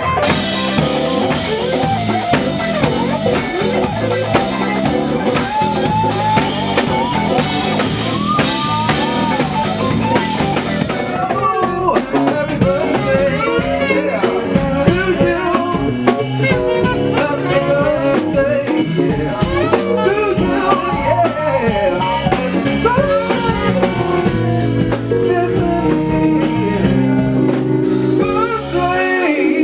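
Live soul and funk band playing: drum kit, electric bass, electric guitar, keyboard and saxophones, with a singer on microphone. The bright cymbal wash eases back about eleven seconds in, leaving the melody lines more to the fore.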